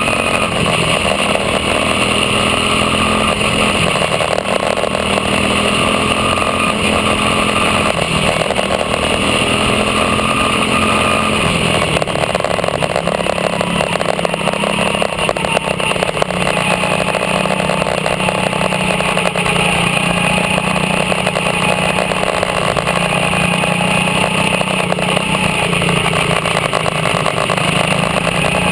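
Quarter midget race car's small engine running steadily at racing speed, heard up close from on board the car, with a shift in its note about twelve seconds in.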